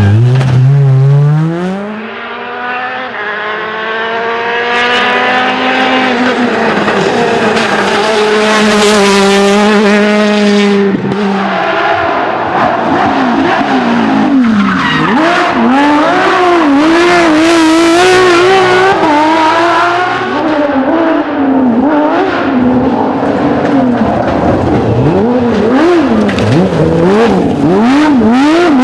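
Rally cars at full stage pace: engines revving high and dropping back through gear changes, one climbing steeply at the start, and later the revs rising and falling quickly over and over as the throttle is worked, with tyres skidding.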